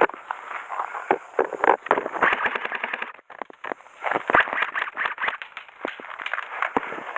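Airsoft guns firing: runs of sharp snapping shots and pops, with a short lull about three seconds in.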